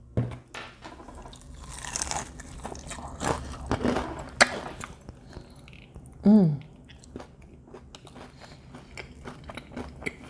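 Close-up crunching bites and chewing of fried chicken, with a short hum of falling pitch about six seconds in.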